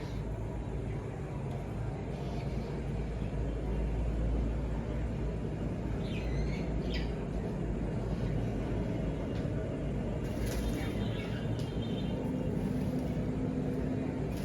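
Cockatiels give a few short chirps, one pair about six seconds in and another brief cluster about ten seconds in, over a steady low rumble.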